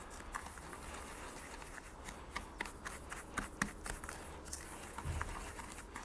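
Silicone spatula stirring a dry spice rub in a stainless steel bowl: faint, irregular gritty scraping with light clicks of the spatula against the metal.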